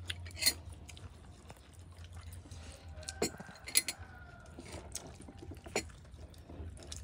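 Eating utensils clinking against bowls and plates during a meal: a few scattered sharp clinks, one every second or so, over a low steady hum.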